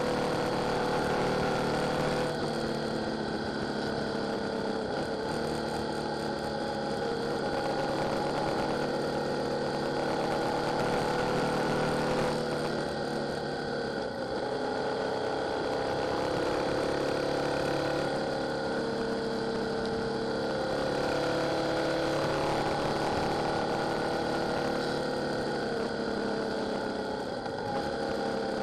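Yamaha Tracer 7's parallel-twin engine running under way on the open road, its pitch dipping and climbing again several times as the throttle is eased and reopened, over a steady rush of wind and road noise.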